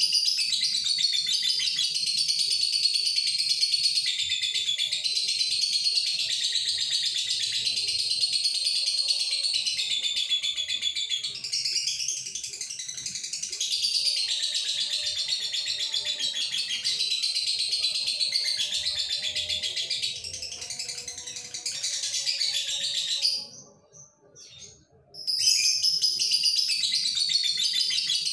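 Male Fischer's lovebird in breeding condition singing a long, continuous, high-pitched song, the long-running male song that lovebird keepers prize. It breaks off for about two seconds near the end, then starts again.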